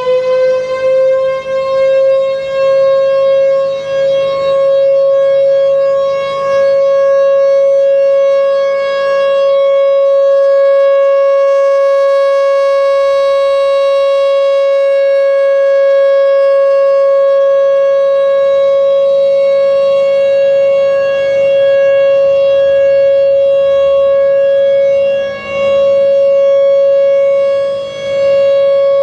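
Federal Signal Thunderbolt 1000A outdoor warning siren with a 6M blower, sounding a steady alert tone. Its pitch finishes rising in the first second or two and then holds, and its loudness dips briefly a few times, most deeply near the end.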